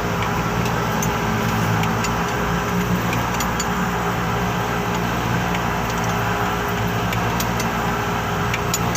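Hino truck's diesel engine idling steadily, with a few light clicks over it.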